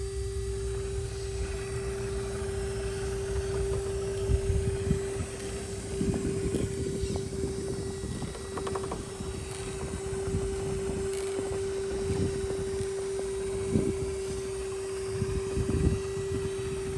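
Electric RC rock crawler's motor and drivetrain running as it crawls over rock: a steady whine with irregular low rumbles and knocks from the tyres and chassis on the rock.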